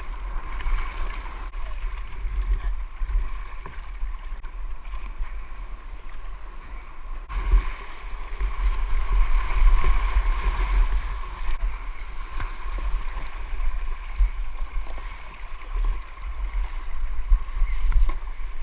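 Sea water sloshing and gurgling around a kayak and a swimmer in the water, rising and falling unevenly, over a heavy low rumble.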